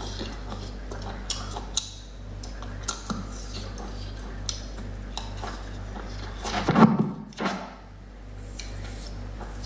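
Scattered light clicks and clinks of small hard objects being handled, with a louder burst of clatter about seven seconds in, over a steady low hum.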